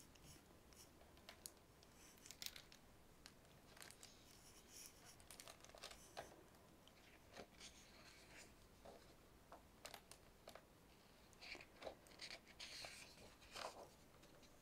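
Faint rustling and soft clicks of a hardcover picture book being opened and its paper pages turned, in scattered short bursts.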